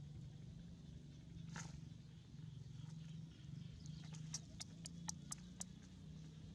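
A monkey's single short, high squeak about a second and a half in, then a quick run of sharp clicks a few seconds later, over a faint low hum.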